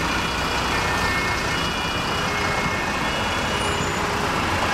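Convoy of fire trucks driving slowly past, their diesel engines running with a steady rumble.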